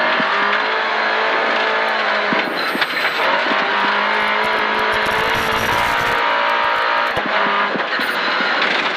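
Volvo 940 Group H rally car's engine running hard at high revs, heard from inside the cabin, with tyre and gravel noise underneath. The revs break off briefly about two and a half seconds in as the car slows, then pull hard again, and a short rumble from the road surface comes about five seconds in.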